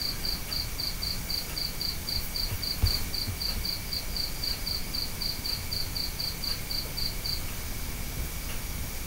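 A cricket chirping in an even rhythm, about two and a half high chirps a second, falling silent about seven seconds in, over a faint steady high whine.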